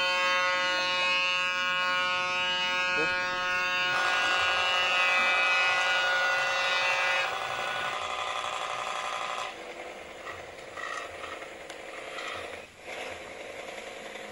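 Steady mechanical buzzing at a fixed pitch that thins out about seven seconds in and falls to a quieter, rougher hiss about nine and a half seconds in.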